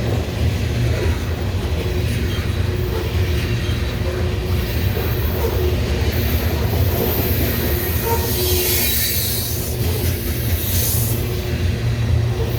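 Canadian Pacific train rolling past at speed: a steady rumble of wheels on rail, with a high hiss of wheel noise rising and fading about eight to eleven seconds in.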